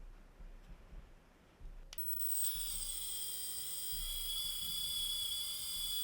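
Nitecore CW20 handheld photography fan switched on with a click about two seconds in, its small motor quickly spinning up to a steady high-pitched whine.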